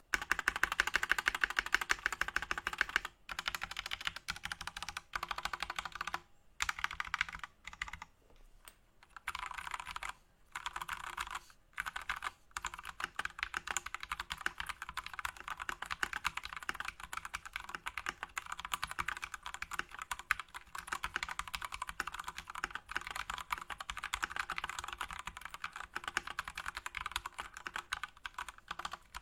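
Typing on an Akko 3061S R2 60% mechanical keyboard with lubed Gateron Orange light-tactile switches and plate-mounted stabilizers: a fast, steady stream of key clicks with a few short pauses in the first half.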